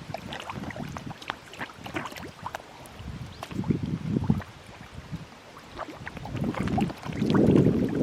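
Many koi splashing and slurping at the water surface as they feed, an irregular patter of small splashes that swells to louder churning near the end.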